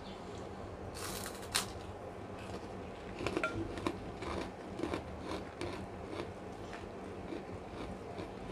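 A crisp kerupuk cracker bitten off with a sharp crunch about a second in, followed by crunchy chewing with a string of small crackles and mouth clicks.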